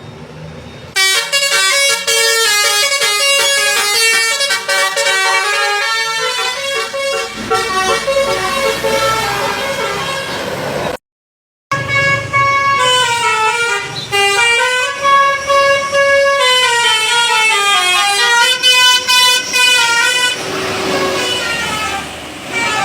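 Tour bus's 'telolet basuri' musical air horn playing a tune of stepped, multi-note tones, breaking off for a moment about eleven seconds in and then playing a second run. The tune stops about twenty seconds in, leaving a noisier mix.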